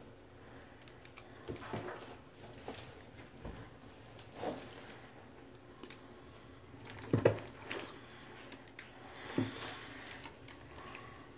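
Soft, scattered movement noises from a man thickly coated in slime: small squishes, taps and rustles, with two louder brief sounds about seven and nine seconds in.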